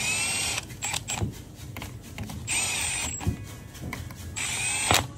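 Milwaukee cordless driver running in three short bursts of under a second each, spinning bolts down into an automatic transmission valve body, with a high whine in each run. A few sharp clicks come between the runs.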